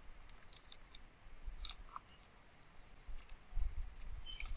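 Computer keyboard keys being typed, a run of short, irregularly spaced clicks.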